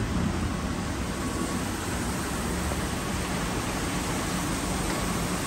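Steady hiss of rain falling.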